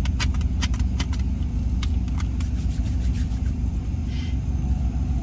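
A car's engine runs with a steady low rumble, heard from inside the cabin. In the first two seconds or so there is a quick run of sharp clicks and rattles.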